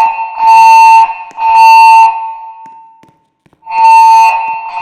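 Fire alarm evacuation tone from the speakers of a Pyrotronics MXL voice evacuation system, sounding in a temporal-three pattern between spoken evacuation messages. A loud, steady, horn-like tone ends, sounds twice more in short pulses, pauses, and a new group of pulses begins near the end.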